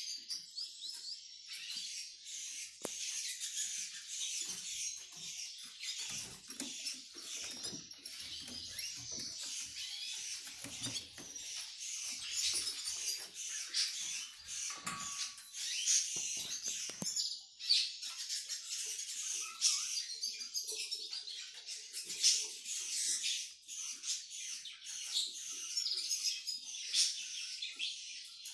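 Caged finches, a male hooded siskin kept with a white canary hen for breeding, twittering and chirping in a fast, unbroken run of high notes.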